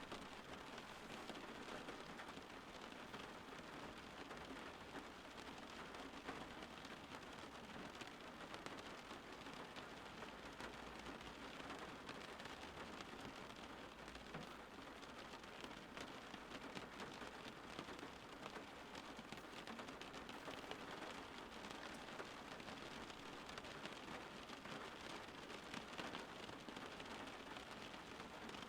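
Light rain falling on leaves: a steady, faint patter of many small drops.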